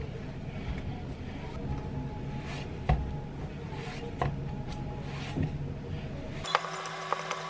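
A hand kneading dough in a stainless steel bowl: soft working noise with a few light knocks and clinks against the metal bowl. Background music with a beat comes in near the end.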